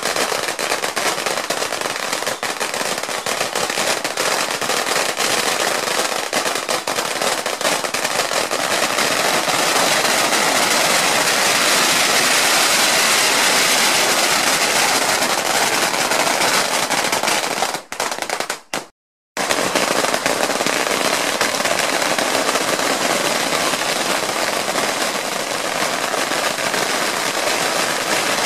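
Long strings of firecrackers going off in a continuous, dense crackle of rapid bangs. The sound cuts out completely for about a second roughly two-thirds of the way in, then the crackling resumes.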